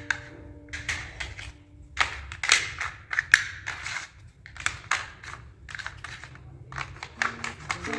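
Plastic play-food pizza pieces being handled: irregular clicks, taps and short scraping, crunchy noises.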